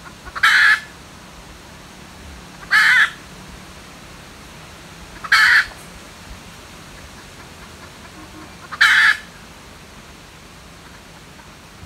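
Junglefowl hen giving four loud, short, harsh calls two to three seconds apart.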